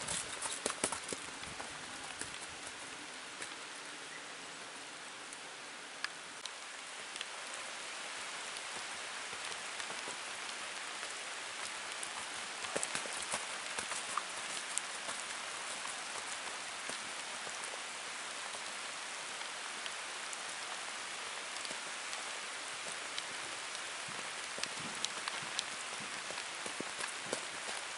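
A steady, even hiss like light rain pattering, with faint scattered ticks through it.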